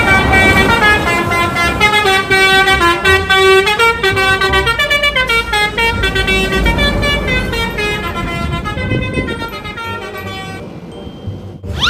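Telolet horn, a multi-tone musical air horn on an Indonesian bus or truck, playing a long tune of stepping notes that stops about a second before the end.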